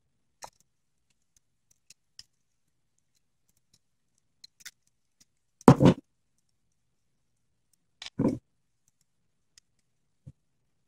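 Faint clicks and scrapes of a small screwdriver working at the screws that hold the spindle motor in a DVD drive's metal chassis. Two louder knocks, about six and eight seconds in, as the pocket tool meets the wooden desk.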